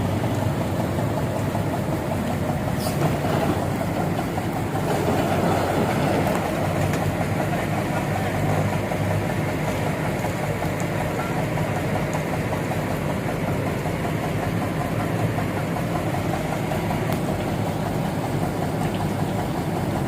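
Heavy engine running steadily at an even speed.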